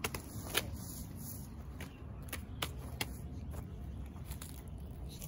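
Footsteps on dry leaf litter and a folding metal-framed dog cot being set down, heard as a few sharp clicks and crackles over a steady low rumble.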